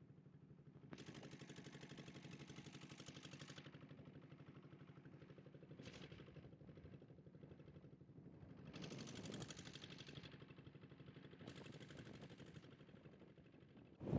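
A boat's engine running steadily with a fast, even chugging, faint and with some wind or water hiss over it.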